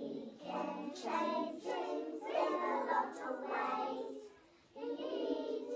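A group of young children singing together, with a short pause about four and a half seconds in before the singing starts again.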